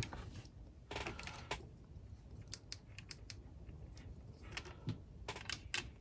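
Light, irregular clicks and taps of hands handling the opened plastic casing of a hard-drive docking station.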